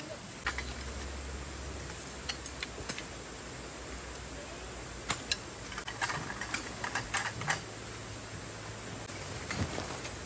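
Scattered light clicks and taps over a steady hiss, most of them bunched together between about six and seven and a half seconds in.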